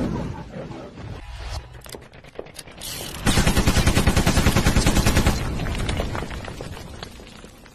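Machine-gun fire sound effect from an animated intro: a rapid burst of about nine shots a second lasting about two seconds, then a fading rumble as the wall gives way.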